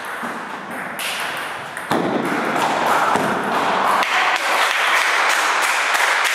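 Table tennis ball being hit back and forth in a rally, sharp clicks of the ball on the bats and the table. A steady rushing noise comes up about two seconds in under the clicks.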